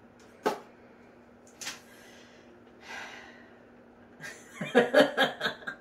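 A paper instruction leaflet rustling in a couple of short crinkles and a breath, then quiet murmured speech near the end, which is the loudest part. A faint steady hum runs underneath.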